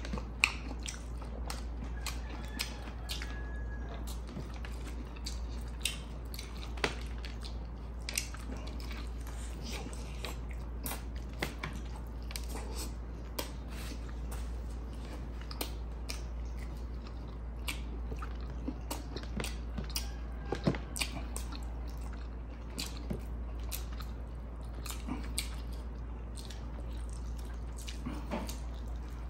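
A person chewing and biting grilled chicken and rice, eaten by hand close to the microphone: wet mouth sounds with many scattered sharp clicks and smacks over a steady low hum.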